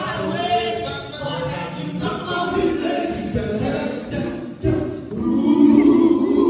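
Gospel vocal group singing together in harmony, with a brief break about two-thirds of the way through and louder singing after it.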